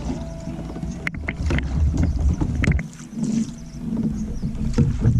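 Handling noise on a kayak: knocks and scrapes against the hull, with a low rumble of wind on the microphone.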